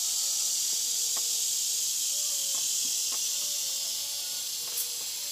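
Cicadas singing in the summer trees: a steady, high-pitched buzzing chorus that eases off a little near the end.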